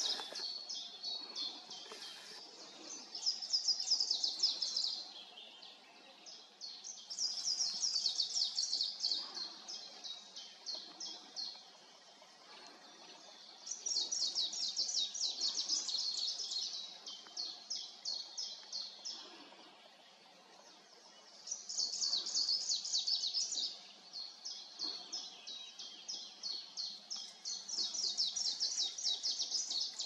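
Songbirds singing: bouts of quick, high-pitched repeated notes a few seconds long, coming again every few seconds, with slower single notes between some bouts.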